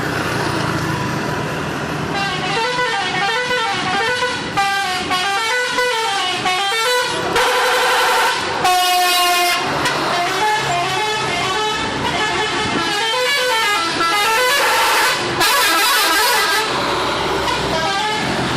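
Telolet horns on coach buses playing quick up-and-down multi-note melodies from about two seconds in, with two louder held blasts, one about halfway and one near the end, over a steady low hum.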